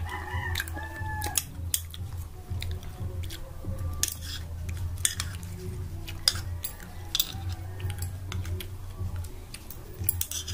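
A utensil clicking and scraping against a bowl in short, irregular taps while eating kimchi, with chewing, over a steady low hum.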